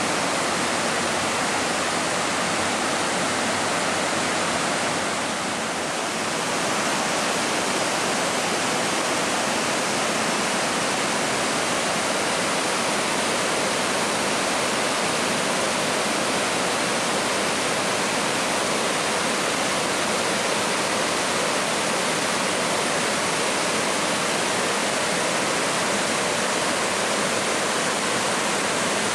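Rutledge Falls, a wide tiered waterfall pouring over stepped rock ledges into a pool: a steady rush of falling water, dipping slightly for a moment about five seconds in.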